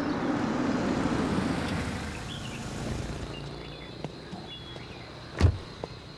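Ford Escape SUV pulling up, its engine and tyre noise dying away over the first few seconds as it stops, with birds chirping. Near the end a car door slams shut with a single sharp thud.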